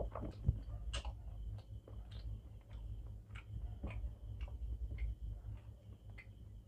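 Close-miked eating sounds from a man eating rice and egg curry by hand: scattered soft, wet clicks, a few a second, from chewing and from fingers mixing rice and curry on a steel plate, over a steady low hum.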